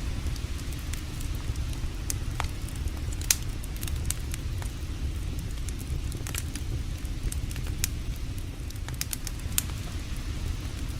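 Wood campfire crackling, with scattered sharp pops, the loudest about three seconds in, over a steady low rumble.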